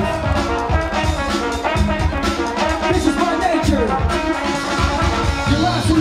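Breakbeat music played by the battle DJ: a steady drum beat with brass horn lines over it.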